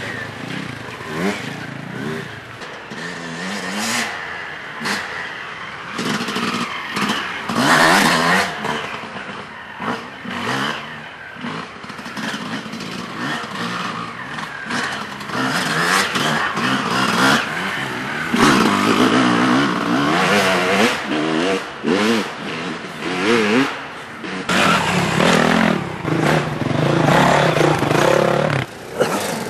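Off-road dirt bike engines revving, their pitch rising and falling as bikes pass one after another. One bike passes loud and close near the end.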